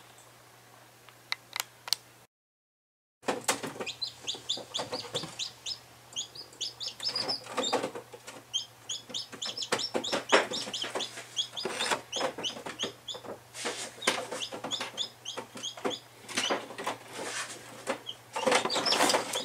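Newly hatched chicks peeping rapidly and continuously in short, high chirps, with scattered clicks and taps among them. The peeping starts about three seconds in, after a moment of silence.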